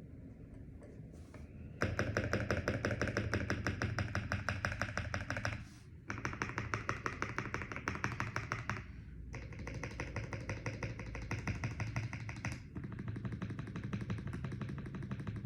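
Fast, continuous typing on a foam-modded CIY Gas67 mechanical keyboard with lubed KTT Rose linear switches: rapid, closely packed keystrokes in long runs, broken by short pauses about six and nine seconds in.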